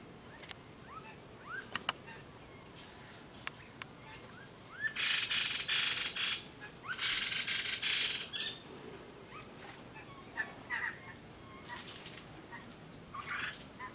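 Birds calling: a few short rising chirps, then two loud, harsh screeching calls of over a second each, about five and seven seconds in, followed by scattered shorter calls.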